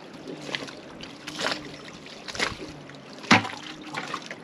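Water slapping and splashing against a sailboat's hull in a series of separate slaps, about one a second, the loudest a little over three seconds in.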